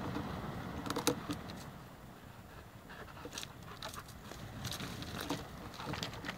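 A small dog gnawing and tugging at a dry driftwood log: scattered sharp clicks and scrapes of teeth on wood, over a low background rumble.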